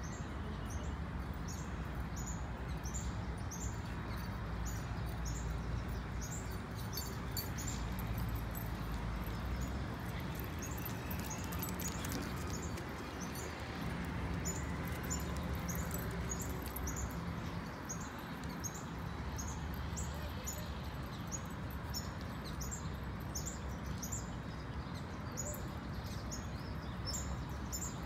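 A small bird chirping over and over in short, high, falling notes, several a second in loose runs, over a steady low background rumble.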